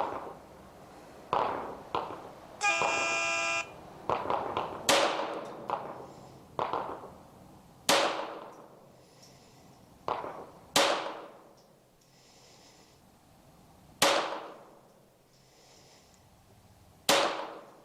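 A one-second electronic start beep, then five shots from a .22 LR pistol (CZ 75B with a Kadet conversion) about three seconds apart, a timed-fire string. Fainter shots from other pistols on the firing line fall in between.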